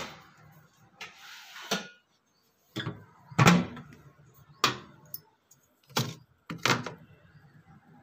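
Refrigerator freezer compartment and plastic food boxes being handled: a short scrape about a second in, then a series of separate knocks and thuds as the freezer door and containers are moved.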